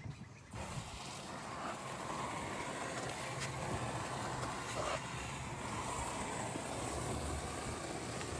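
Water running steadily from a coin-operated water dispenser into a 20-litre jerry can, with a low hum under it. It starts suddenly about half a second in, just after a click.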